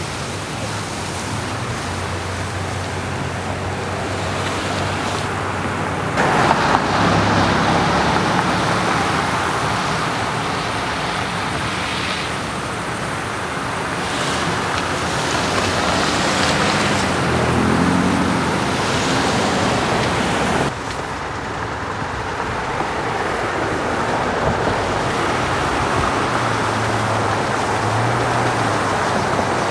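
Cars driving slowly on an icy, snow-covered road: engines running under a steady hiss of road noise. The noise jumps louder about six seconds in, an engine note rises and falls a little past the middle, and the noise drops suddenly about twenty-one seconds in.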